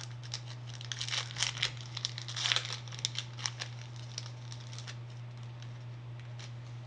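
Crinkly wrapper of a Pokémon card pack being handled and torn open, in quick clusters of crackles that thin out about five seconds in. A steady low hum runs underneath.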